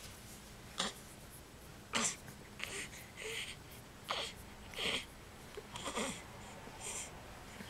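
A baby's short, wheezy, snuffly breaths and small grunts, coming about once a second.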